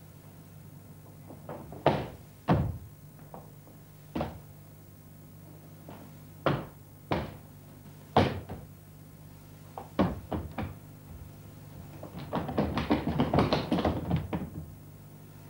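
Bare feet stamping and landing on a stage floor: single heavy thuds every second or two, then a quick flurry of footfalls about twelve seconds in. A steady low hum runs underneath.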